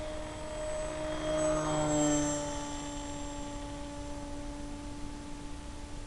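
Brushless electric motor and propeller of a Skywalker Sirius FPV plane running in flight: a steady whine of several tones over a noise bed, swelling louder about two seconds in, then settling back.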